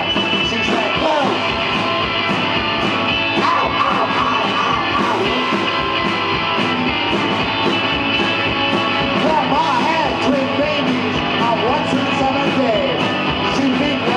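Live rock band playing loud and steady: drums with a regular cymbal beat under electric guitars, with wavering, bending notes over the top around nine to ten seconds in.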